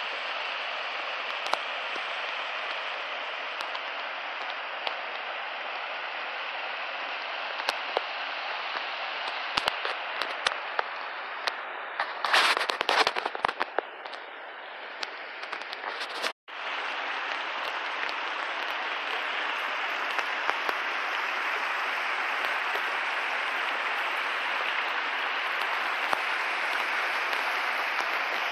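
Steady rushing noise of river water, with scattered clicks and a quick cluster of sharp knocks about twelve seconds in; the sound cuts out for an instant about sixteen seconds in.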